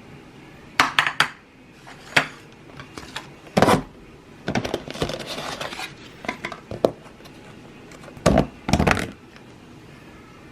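Dishes and cutlery clattering as they are handled: a string of separate clinks and knocks, with a busier stretch of clatter about halfway through.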